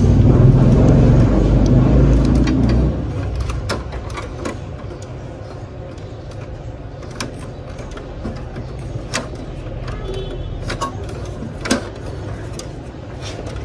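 Scattered sharp plastic clicks and taps as the paper pickup roller of a Canon MF3010 laser printer is handled and worked loose from its mounting. A steady low rumble underneath drops away about three seconds in.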